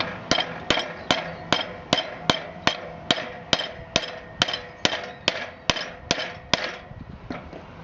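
Small club hammer striking a Hudy pin tool to drive a new pin into an RC car's steel drive shaft. It hits in a steady, even rhythm of about two and a half blows a second, each blow with a short metallic ring, and the strikes stop about six and a half seconds in.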